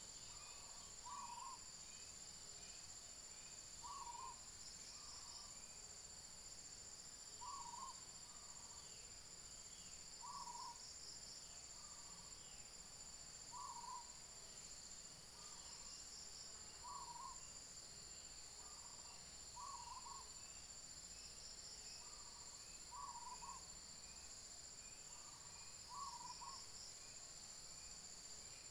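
Faint steady high buzz of insects, with a short two-part call repeating about every three seconds.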